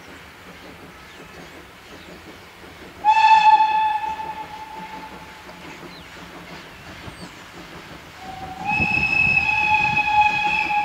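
Steam locomotive whistle blowing twice: a short sharp blast about three seconds in that fades over a second or so, then a longer blast near the end that starts a little low and settles in pitch. The locomotive's exhaust beats sound under the second blast as it pulls away.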